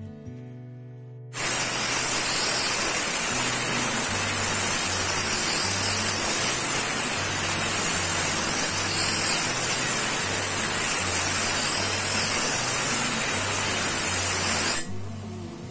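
Bench grinder wheel grinding the edge of a forged iron sword blade: a loud, steady, harsh hiss that starts about a second in and falls away near the end. A repeating low bass line of background music runs underneath.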